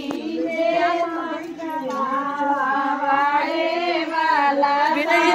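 High female voices singing a devotional song, with long held notes that bend in pitch.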